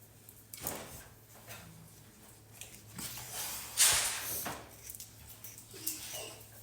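Soft rustling and scraping as long hairs are plucked by hand from a dog's coat during hand-stripping, in short irregular strokes with the loudest one about four seconds in. A faint steady low hum runs underneath.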